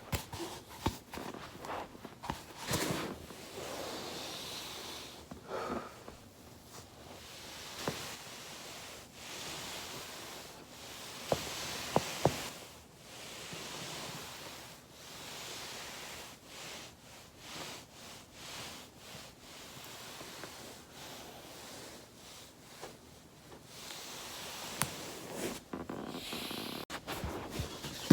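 A body rolling over a foam roller: slow swells of rustling noise, with scattered sharp cracks from the joints of the back. The loudest two cracks come close together a little before midway.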